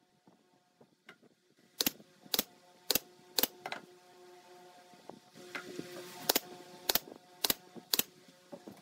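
Pneumatic brad nailer firing nails into a pine joint: sharp shots about half a second apart in two runs, four or five near the start and four more toward the end.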